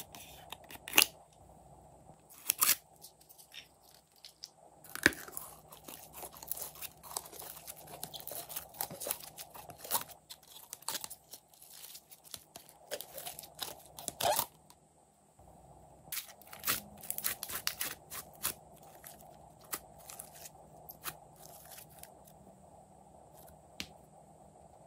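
Plastic cap of a bear-shaped slime bottle clicking a few times as it is handled and opened, then thick store-bought slime squelching with dense crackling pops for about ten seconds as it is squeezed out of the bottle, followed by scattered sticky pops and clicks.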